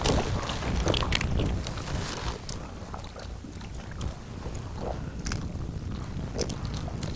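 Low rumble of wind on the microphone in an open fishing boat, with scattered light knocks and clicks.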